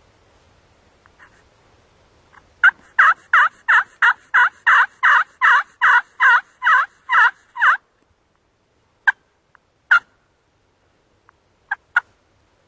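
Turkey yelping: a run of about fourteen loud yelps, roughly three a second, each note breaking downward in pitch, followed by a few short single clucks.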